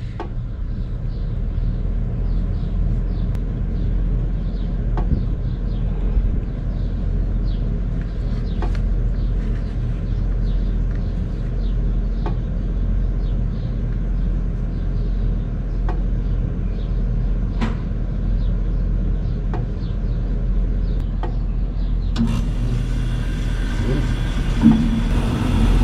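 Air conditioner outdoor unit running with a steady low rumble and faint ticks. About 22 seconds in a hiss joins it as the newly replaced LG 18,000 BTU compressor starts up and its current climbs to several amps.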